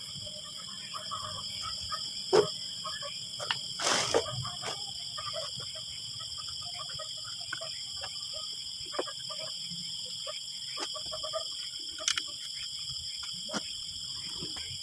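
Steady high-pitched chorus of night insects, with a few sharp metal clinks and knocks as a silencer end cap is handled and pushed into a motorcycle muffler outlet; the loudest knock comes a little over two seconds in.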